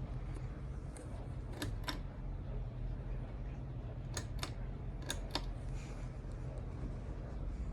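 Minka Aire Contractor ceiling fan running with a steady low hum. Three pairs of sharp clicks come over the hum, a few seconds apart.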